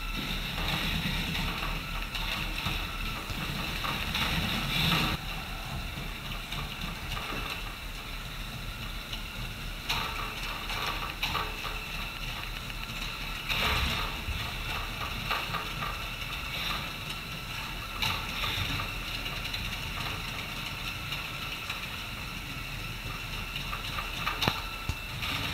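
Small mobile robot's drive motors and gears whirring in a steady high whine as it manoeuvres, with scattered clicks and knocks, the sharpest near the end.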